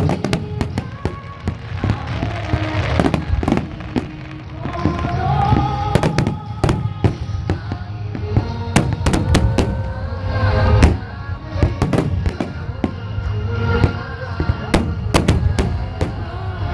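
Fireworks bursting in quick succession, many sharp bangs and crackles over a deep rumble, with music playing at the same time.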